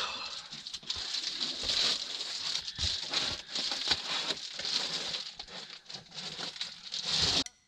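Foil-faced bubble-wrap insulation crinkling and rustling as a large sheet is handled and pressed up against ceiling battens, with many small crackles. It cuts off suddenly near the end.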